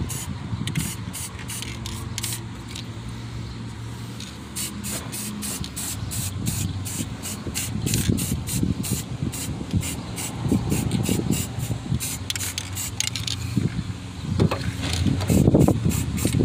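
Aerosol spray can hissing in many short, rapid bursts as paint is sprayed onto a rusty engine cooling fan blade.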